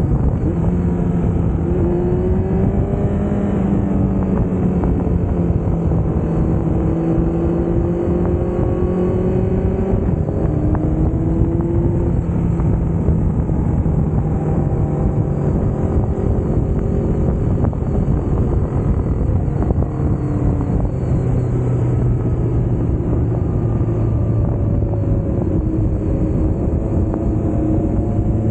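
Honda CBR1000RR's inline-four engine running at speed on the road, its pitch rising and falling as the throttle opens and closes, with a steady rush of wind on the bike-mounted microphone.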